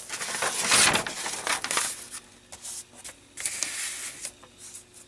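Paper instruction sheet rustling and crinkling as it is handled, unfolded and turned. It comes as a string of bursts, loudest in the first two seconds, with a shorter run about three and a half seconds in.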